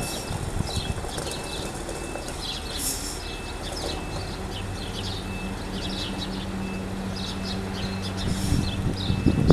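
Volvo B58 bus's diesel engine idling with a steady low hum that grows stronger about halfway through, while birds chirp repeatedly.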